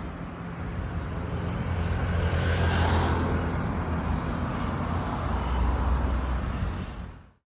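Boat engine running steadily under a wash of wind and water noise, swelling about three seconds in; the sound cuts off abruptly near the end.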